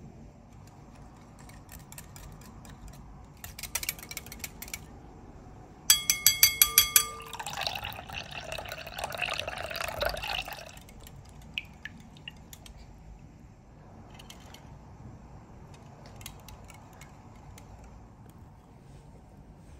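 Liquid pouring in a stream into a glass mixing bowl for about three seconds, just after a quick run of sharp, ringing clinks. Scattered faint clicks of utensils come before and after.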